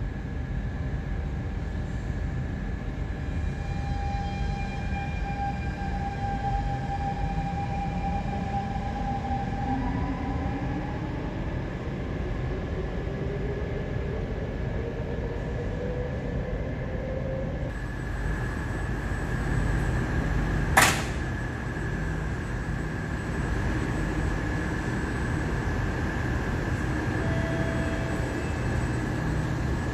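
An SMRT North-South Line metro train pulls out of an underground station, its traction motors whining steadily rising in pitch as it accelerates away over a low rumble. A single sharp crack about 21 seconds in is the loudest sound. Another train then rumbles in toward the platform near the end.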